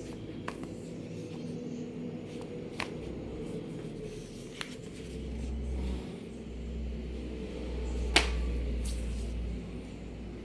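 Handling noises from unpacking a parcel: a few separate sharp clicks and taps, the loudest about eight seconds in, over a steady low rumble.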